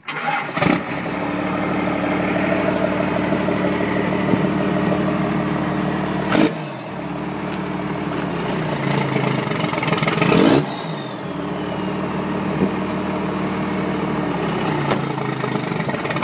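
Dodge 5.9 Cummins turbo-diesel running loud and steady through a 7-inch exhaust stack. It is revved up about two-thirds through and then let off sharply, after which a high whistle falls away. The owner says the engine has a bad injector, making it smoke.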